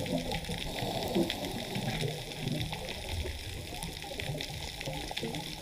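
Underwater sound: a steady bubbling, gurgling water noise with many small sharp crackling clicks scattered through it.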